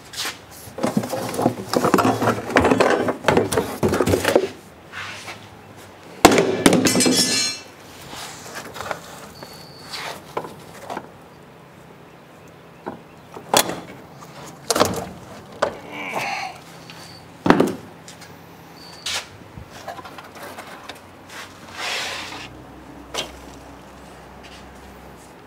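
Hand work on sheet-metal car parts: scraping and clunking as a rusty fuel tank is worked loose in a car's trunk, then scattered short, sharp knocks and clicks.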